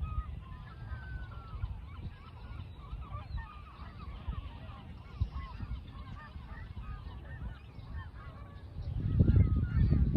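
A large flock of geese calling and honking, many overlapping calls at once, over a low rumble that gets much louder near the end.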